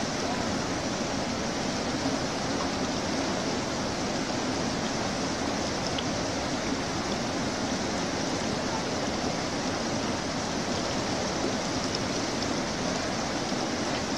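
Fast, shallow mountain river rushing steadily over rocks and around a stalled off-road vehicle: an even, unbroken water noise.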